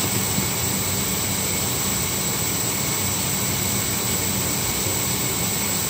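Steady mechanical drone with a low hum underneath, holding at one level throughout.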